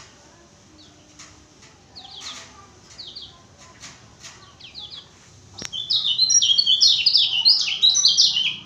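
Songbird singing: scattered short chirps at first, then about six seconds in a loud, rapid song of quick, varied high notes that stops near the end. This is the bird in full, vigorous song, the 'gacor' singing that such birds are valued for.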